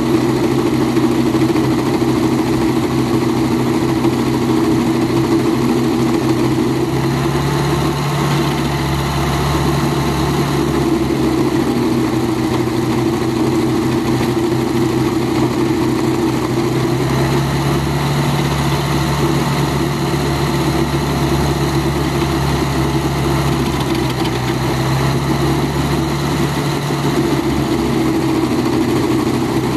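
Vermeer 630 stump grinder's engine running steadily with its cutter wheel at the stump. A deeper rumble swells twice, about eight seconds in and again from about seventeen seconds.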